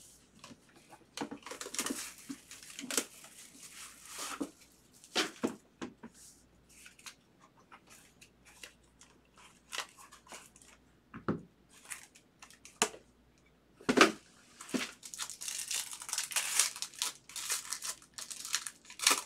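Trading-card packaging being opened by hand: scattered clicks, taps and rustles as a cardboard box and cards are handled, then a longer stretch of a foil card-pack wrapper crinkling and tearing near the end.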